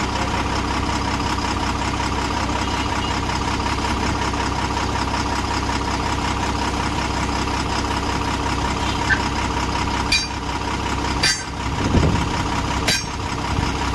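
A motor or engine running steadily at an even level, with several sharp knocks about ten seconds in.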